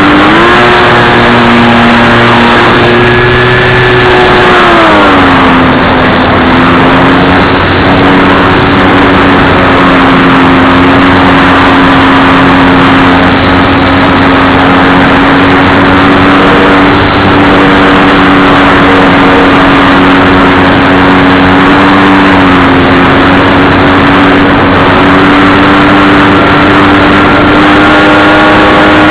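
Radio-controlled model plane's motor and propeller running loud and close, with heavy rushing wind-and-prop noise. The motor's pitch drops about five seconds in as the throttle is eased back, then holds steady, rising slightly near the end.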